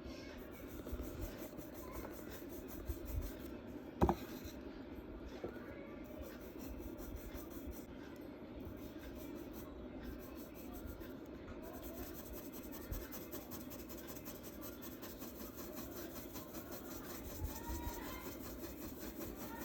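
Charcoal being rubbed and shaded on drawing paper, a steady scratchy rubbing, with one sharp tap about four seconds in.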